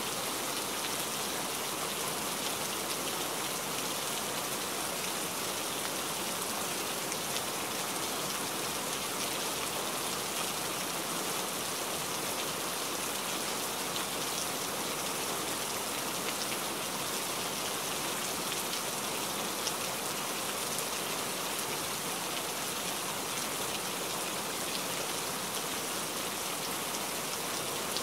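Steady downpour: an even hiss of rain with faint scattered drop ticks.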